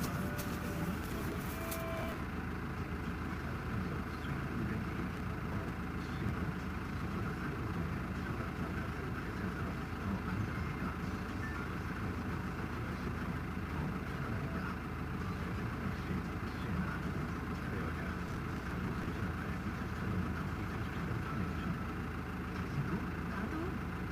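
A motor vehicle running: a steady low rumble of engine and road noise.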